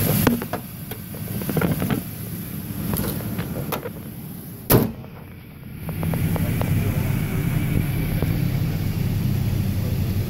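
2000 Toyota Tacoma's engine idling steadily, with one sharp slam a little under halfway through as the hood is shut.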